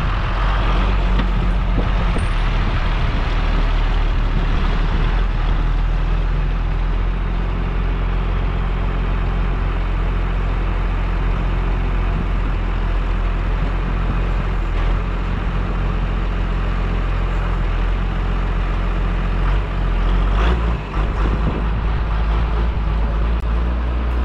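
Log skidder's diesel engine running steadily with a low, even drone. There is a brief dip and a knock about twenty seconds in.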